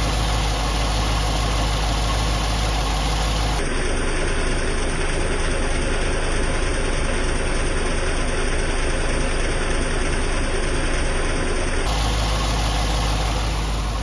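1998 Corvette C5's 5.7-litre LS1 V8 idling steadily, with the accessory drive belt on new tensioner and idler pulleys running without any squeal. The sound changes abruptly about four seconds in and changes back near twelve seconds.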